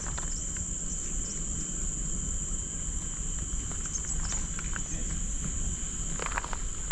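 Steady, high-pitched drone of insects, with a few light footsteps near the end.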